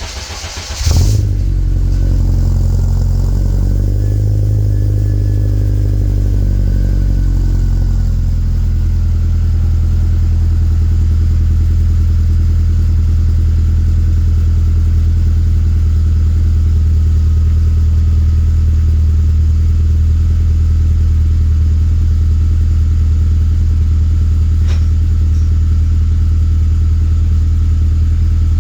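Honda Civic Si's K20 four-cylinder cranking and catching about a second in, with a short flare, then a fast idle that wavers for several seconds before settling into a steady idle. It runs through a freshly fitted Skunk2 Alpha header and 3-inch exhaust.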